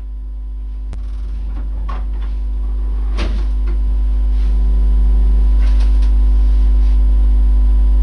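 Loud, low electrical hum, growing louder over the first five seconds and then holding steady, with a few faint clicks and rustles on top.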